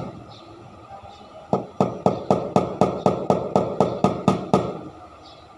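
A run of about a dozen sharp knocks, evenly spaced at roughly four a second, starting about a second and a half in and stopping before the end, after a single knock at the very start.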